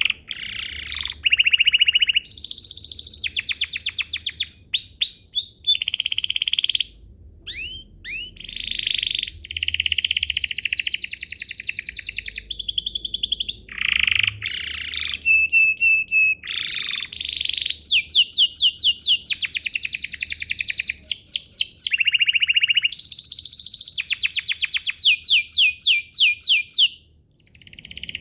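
Domestic canary singing a long, continuous song of fast trills and rolling phrases, changing from one trill to the next every second or two, with a short break about seven seconds in and another near the end.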